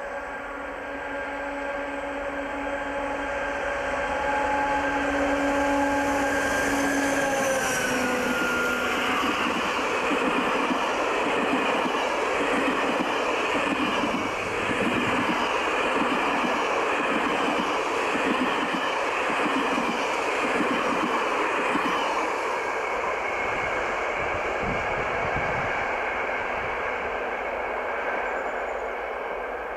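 Diesel-hauled passenger train passing close by. The locomotive's engine drone grows louder and drops in pitch as it goes past about eight seconds in. The coaches' wheels then clatter in a regular rhythm over the rail joints, and the sound fades near the end as the train draws away.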